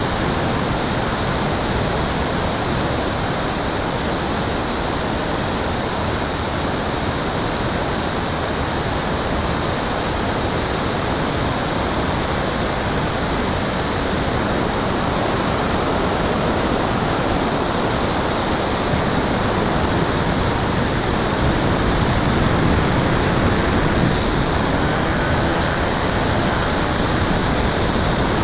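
Steady rush of airflow and propeller noise from a Bixler 2 RC foam plane in flight, its NTM 35-30 1400kv brushless motor spinning a 9x6 propeller, picked up by the camera on board. A high whine slides down in pitch over several seconds past the middle.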